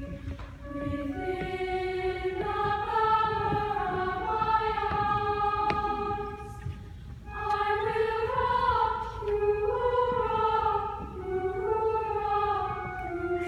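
Girls' choir singing sustained, blended phrases, with a short break for breath about seven seconds in.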